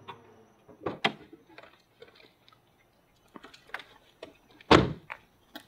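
Footsteps, hard shoes stepping at a walking pace as a few sharp, irregular clicks and knocks, with one heavier thud about three-quarters of the way through.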